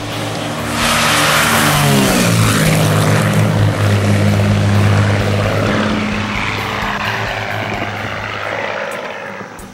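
1965 Cessna 310J twin-engine plane passing low at full power: the engine and propeller drone turns loud about a second in, drops in pitch as the plane goes by, then fades as it climbs away.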